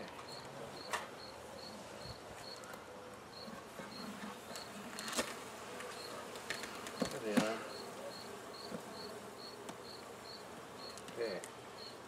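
Honey bees buzzing around an opened hive box as the colony is handled, with a few sharp knocks of hive equipment about 1, 5 and 7 seconds in. A faint high chirp repeats about twice a second throughout.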